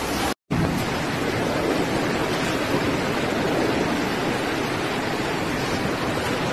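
Steady rushing noise of heavy rain and floodwater, with a brief break a moment after the start.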